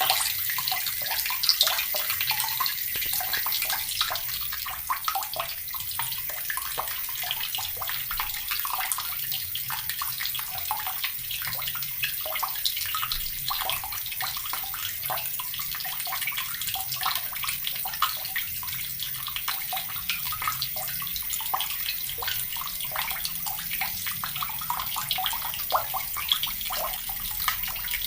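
Water running steadily from a tap, splashing and trickling into the water below.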